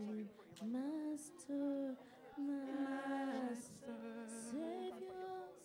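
A woman singing, holding notes of about a second each and gliding in pitch from one to the next.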